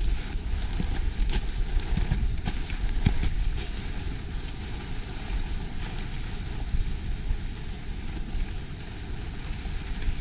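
Wind buffeting a handheld GoPro's microphone during a fast ski descent, a steady low rumble, with the skis hissing and scraping over the snow in short irregular scrapes.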